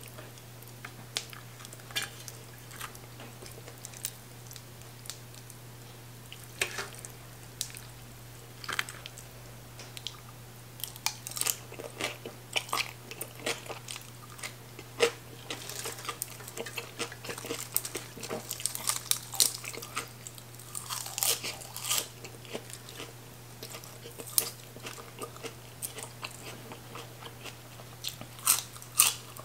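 Close-miked eating: a person chewing and crunching green papaya salad, fried fish and raw greens, with many crisp crunches that come thickest in the middle. A steady low hum runs underneath.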